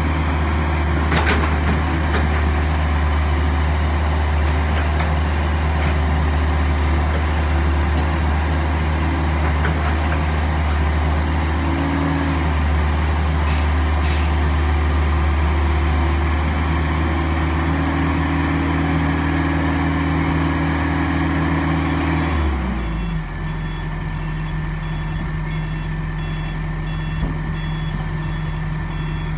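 Kobelco SK135SR excavator's diesel engine running at working revs while it digs and loads concrete rubble, with a few sharp knocks of broken concrete. About 22 seconds in, the engine drops to a lower idle and a regular series of short warning beeps starts.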